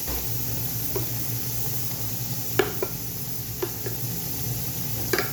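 Spoon stirring food in a cooking pot: a handful of scrapes and knocks against the pot, the loudest about two and a half seconds in, over a steady hiss.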